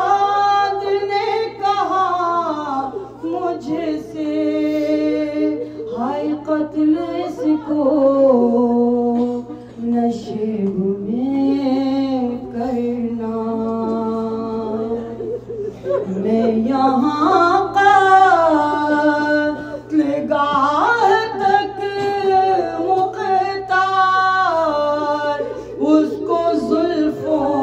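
A voice chanting a soz-khwani salam elegy in Urdu, drawing out long held notes that glide slowly up and down, over a steady low hum.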